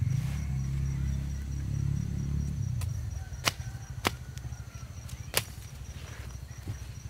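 A low rumble that fades out about three seconds in, then three sharp knocks, the first two close together and the third about a second later.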